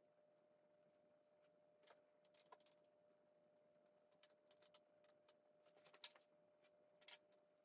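Faint clicks and clinks of small metal parts and tools being handled on a workbench, with two louder clinks about six and seven seconds in. A faint steady hum runs underneath.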